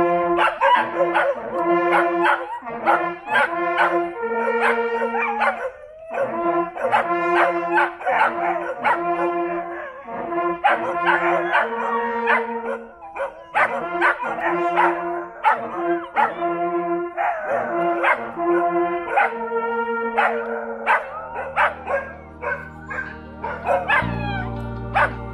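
An ensemble of small hunting horns plays a fanfare of held and short brass notes in several voices. Near the end the horns stop and slow, organ-like background music comes in.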